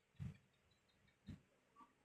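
Near silence, with two faint brief thumps about a second apart.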